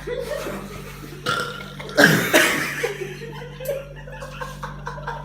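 A person belching, with the loudest, longest belch about two seconds in.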